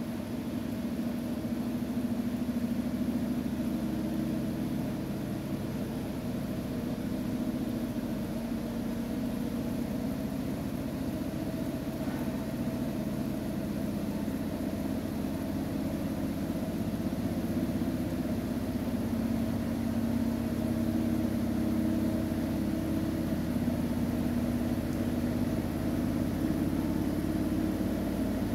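Siemens iQ700 washing machine in its final spin, the drum and motor turning with a steady whirring hum that grows slightly louder toward the end.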